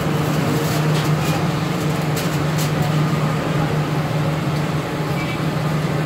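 A steady, loud mechanical hum with a constant low drone, and a few faint clicks in the first couple of seconds.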